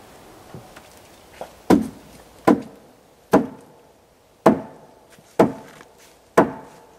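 Six heavy hammer blows on a plywood subfloor sheet, about one a second, knocking the sheet into place on the joists, with a couple of lighter taps before them.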